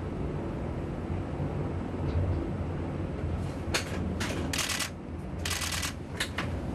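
CH-53 heavy-lift helicopter lifting off, its rotors and turbine engines running with a steady low drone. Several short bursts of hiss come about halfway through.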